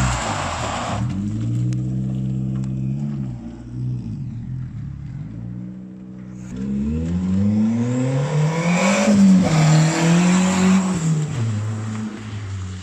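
Toyota Starlet EP82's turbocharged four-cylinder engine revving up and down as the car is driven hard. The pitch climbs and drops several times with gear changes, with the hardest, loudest pull about nine seconds in.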